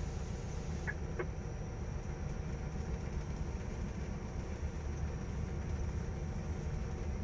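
General Electric diesel-electric locomotive heard from inside its cab: a steady low engine rumble as the train runs along the track. Two brief high chirps about a second in.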